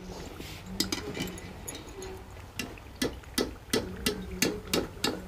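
Wire-mesh skimmer clinking against the metal kadhai as fried mathri are lifted out of the oil: a run of light metal clicks, settling into about three a second in the second half.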